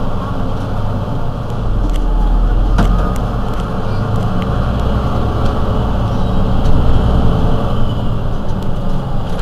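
Mercedes-Benz Citaro C2 city bus's diesel engine idling at a stop, a steady low rumble that swells and eases a few times.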